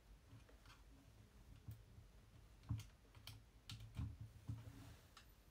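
Faint, irregular clicks and soft taps, like small objects being handled on a desk, a dozen or so spread out with a few louder knocks in the second half.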